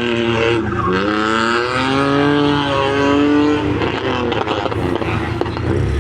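Rally car engine at full throttle accelerating away from a start, its pitch dropping at a gear change about a second in, climbing again and then falling away. Another engine note comes in near the end.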